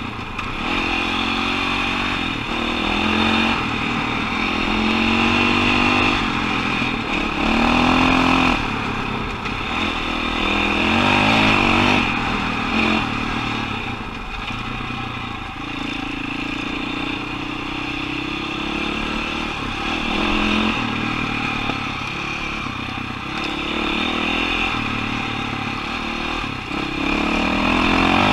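KTM 525 XCW dirt bike's single-cylinder four-stroke engine under way, its pitch climbing and dropping again and again as the throttle is worked, over steady rushing noise.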